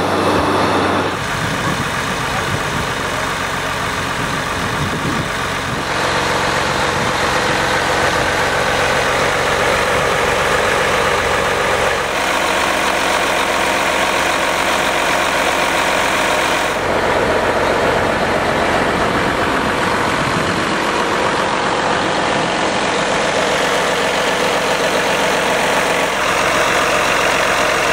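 Engine of a trailer-mounted Thompson pump running steadily as it drives the pump. Its tone changes abruptly a few times.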